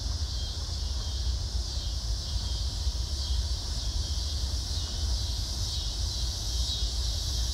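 Steady outdoor ambience: a continuous high, shimmering insect chorus over a low rumble like wind on the microphone.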